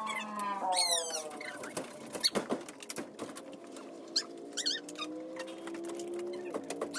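Dogs whining, with short high squeaky whimpers, and claws clicking and pattering on a wooden floor.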